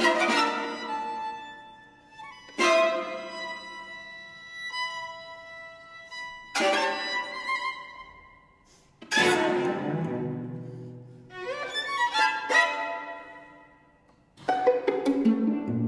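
String quartet playing contemporary music: a run of sudden struck or plucked attacks, one every two to four seconds, each ringing and fading away, with sliding string pitches. Low cello notes come in near the end.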